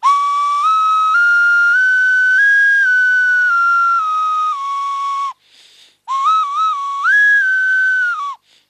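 Hand-made clay whistle with finger holes (a prehispanic-style huijola) blown and fingered through its pentatonic five-note scale. A clear whistled tone steps up note by note and back down, then after a brief break comes a quicker phrase of short notes.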